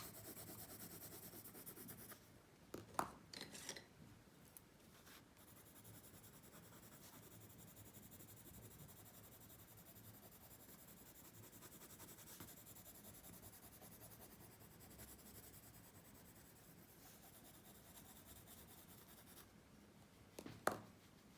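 Pencil moving on paper in steady, fast shading strokes. A few sharp clicks come about three seconds in and once more near the end.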